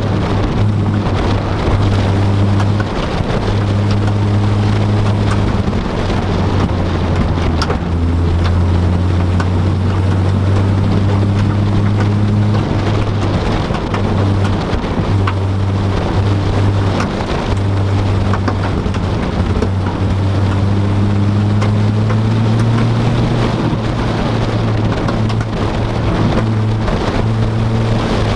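Car engine and road noise heard inside the cabin while driving, a steady low drone that shifts in pitch as the speed changes. Many short, sharp cracks and pops are scattered over it.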